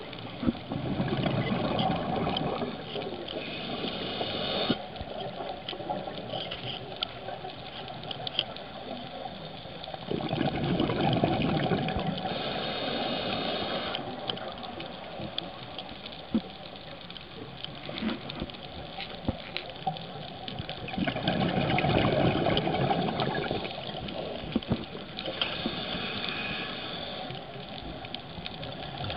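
Scuba diver breathing underwater through a regulator: three long swells of exhaled bubbles about ten seconds apart, with small clicks and water noise in between.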